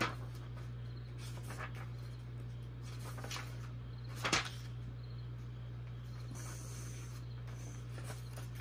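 Pages of a paper instruction booklet being turned and handled: a few short rustles, the loudest about four seconds in, over a steady low hum.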